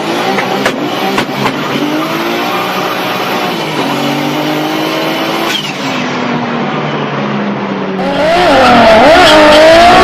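Car engine accelerating, its pitch climbing repeatedly as it pulls through the gears, with a few sharp pops early on. About eight seconds in it changes abruptly to louder, wavering tyre squeal.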